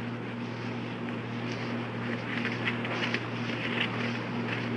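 Steady electrical hum and hiss in the background of the recording, with a few faint soft rustles.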